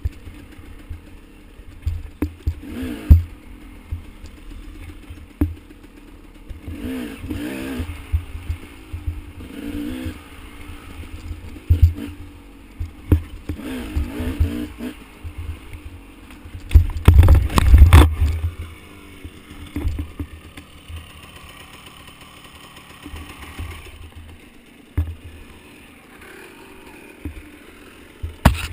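Dirt bike engine revving up and down as it rides a tight, bumpy trail, with low rumbles and knocks from wind and jolts on the helmet microphone, loudest about two-thirds of the way through.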